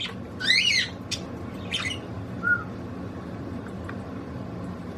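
Pet budgie calling: a harsh squawk about half a second in, then a couple of short sharp chirps and a soft short whistle, over a steady low hum.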